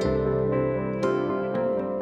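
Background instrumental music: soft, sustained keyboard-like notes, with new notes struck at the start and about a second in.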